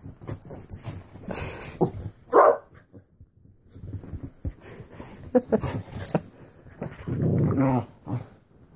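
Two puppies play-fighting over a bone: growls and barks in irregular bursts, loudest about two and a half seconds in and again near the end.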